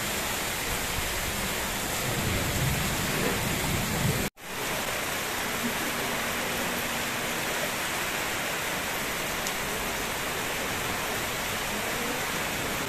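Heavy rain pouring onto a flooded street and brick paving, a steady hiss of falling water. The sound cuts out for an instant about four seconds in, then resumes unchanged.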